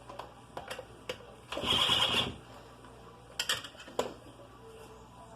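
Hand tools and small metal parts clicking and clinking during the disassembly of a Stihl FS 290 brushcutter, with one harsher noisy burst lasting under a second about a second and a half in.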